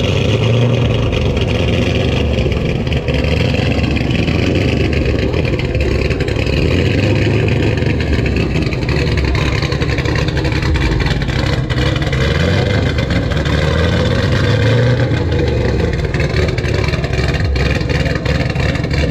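A car engine running loud and close, swelling a few times.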